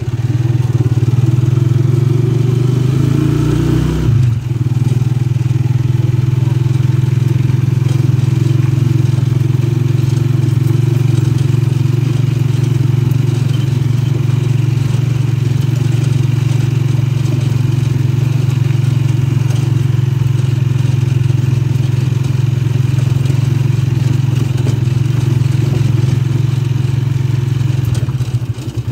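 Engine of a small motor vehicle running steadily while driving along, with a brief dip about four seconds in. The engine sound drops in level near the end.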